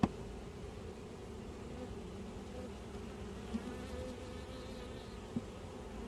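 Honey bee swarm buzzing steadily close by, a continuous low hum. There is a sharp click right at the start and two softer knocks later on.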